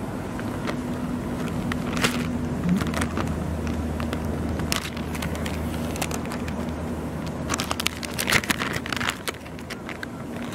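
A plastic-foil retort curry pouch crinkling as it is handled and torn open, with a cluster of crackly rustles about three-quarters of the way through, over a steady low hum.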